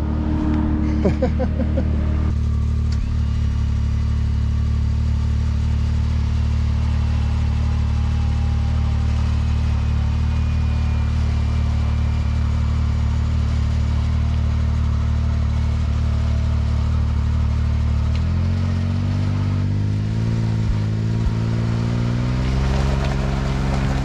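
Can-Am Maverick X3's turbocharged three-cylinder engine running at a steady speed, then, from about three-quarters of the way through, revving higher in uneven surges as it is throttled up to drag a rope-tied downed tree.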